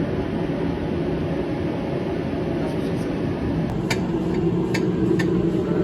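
Steady low mechanical drone of a car heard from inside, with a few short sharp clicks about four and five seconds in.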